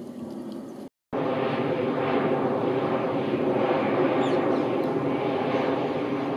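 Boeing 737 airliner's jet engines as it flies overhead: a steady, loud rushing hum. It cuts in suddenly about a second in, after a brief gap of silence. Before the gap a fainter jet sound is heard.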